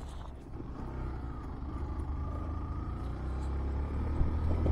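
Steady low rumble of a vehicle's engine and tyres on a rough gravel road, heard from inside the cabin, growing a little louder toward the end. There is one brief knock about four seconds in.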